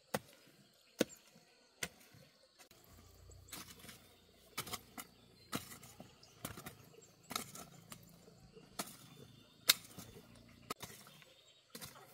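A blade chopping into wood: sharp single strikes, roughly one a second at first, then more irregular and sometimes in quick pairs, with one especially loud blow near the end.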